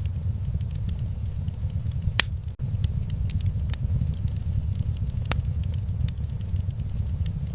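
Wood fire crackling in a fireplace: irregular sharp pops and snaps over a steady low rumble, with one louder pop about two seconds in.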